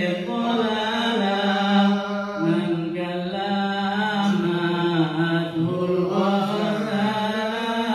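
A man's solo Islamic recitation chanted into a microphone and loudspeaker: long held notes with ornamented, wavering turns, changing pitch several times with no break.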